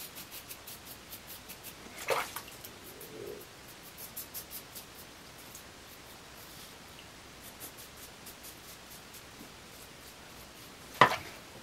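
Double-edge safety razor scraping through lathered stubble in quick short strokes on a cross-grain pass: a rapid run of fine scratches, about five a second, coming in spells. Two louder knocks stand out, one about two seconds in and a sharper one near the end.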